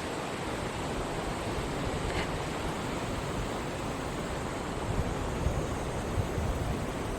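Steady rushing of falling water from the Kawarage Oyutaki hot-spring waterfall.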